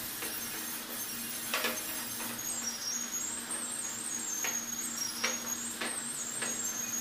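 Masking tape being pulled off the roll in short rasping strips, about five times, as it is laid along a board's edge. A steady low hum lies underneath.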